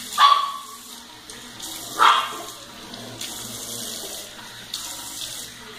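A tap running into a bathroom sink while a face is rinsed under it, a face scrub being washed off. Two short, loud cries cut through it, one at the start and one about two seconds in.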